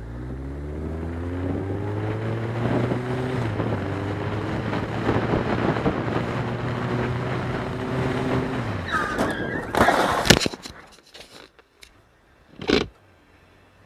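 Honda motorcycle engine running steadily under way, its pitch dipping and recovering a few times, until it drops away about eight and a half seconds in. A brief squeal follows, then a loud crash about ten seconds in as the motorcycle hits a car, with a few clatters after it and one more short crash noise near the end.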